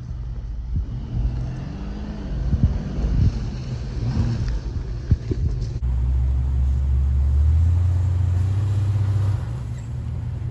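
Jeep Cherokee XJ engines under way off-road: first a low rumble with a few sharp knocks over rough ground, then, after a cut about six seconds in, a louder steady low drone from a Cherokee climbing a steep dirt hill under load, which drops off near the end.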